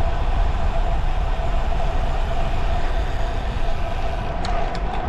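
Wind rushing over the microphone and road noise from a road bike in motion, a steady rumble with a constant hum underneath. A few sharp ticks come in near the end.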